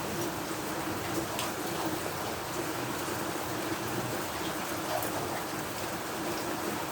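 Heavy rain falling steadily, with scattered individual drops ticking on surfaces.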